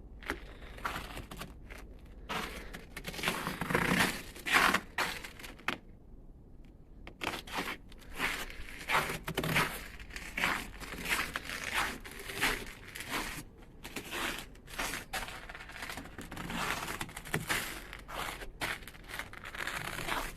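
Footsteps crunching through deep, fresh blizzard snow, a crunch roughly every second with a short pause partway through.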